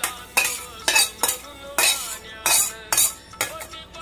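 Metal utensil scraping cooked sheera out of a tilted metal kadhai into an aluminium pot: repeated scrapes and knocks of metal on metal, about two a second.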